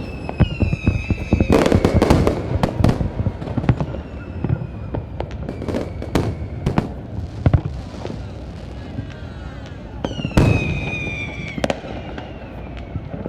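Fireworks display: a dense barrage of bangs and crackling. Whistles slide slowly down in pitch near the start and again about ten seconds in.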